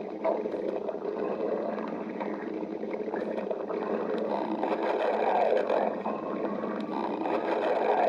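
A hungry stomach growling: a continuous low, gurgling rumble that swells louder about five seconds in and again near the end.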